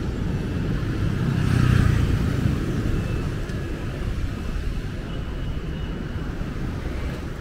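Street traffic: cars and motorbikes running past, one vehicle going by close and loudest about two seconds in, then a steady low rumble.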